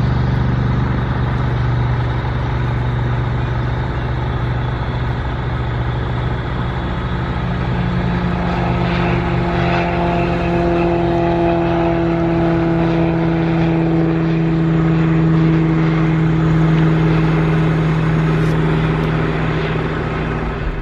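Engine of a light single-engine tug plane running at full power as it tows a glider off the airfield and into the climb: a steady drone, with higher tones that come in about eight seconds in and fade again a few seconds later.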